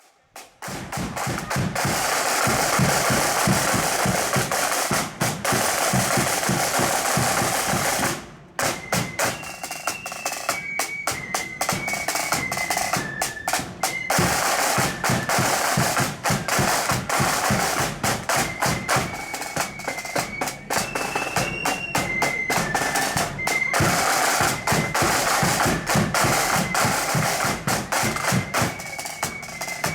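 Marching band playing: a long snare drum roll with bass drum, a brief break, then a high flute melody carried over the snares and bass drum.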